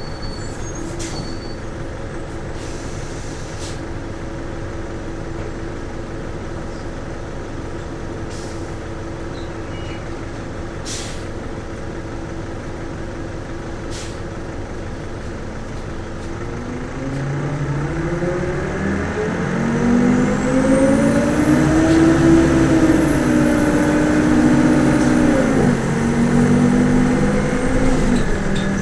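A 2002 NABI 416 transit bus's Detroit Diesel Series 50 four-cylinder diesel, heard on board. It idles steadily with a few short hisses and clicks, then about 17 seconds in the bus pulls away. The engine note rises and gets louder, with a faint high whine climbing alongside, and drops sharply at an upshift of the Allison automatic about 26 seconds in before carrying on.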